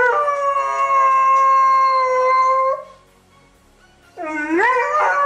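Doberman howling: one long howl that swoops up and then holds a steady pitch, stopping about three seconds in. A second howl starts with a rising swoop near the end.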